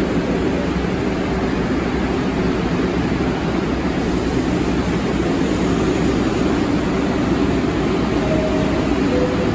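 Subway train standing at the platform with its doors open, giving off a steady rumbling hum from its onboard equipment.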